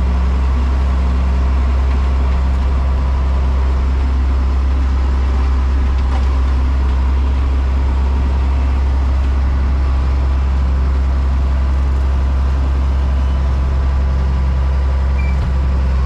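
Tractor engine running steadily at idle: an even, low drone that holds without change.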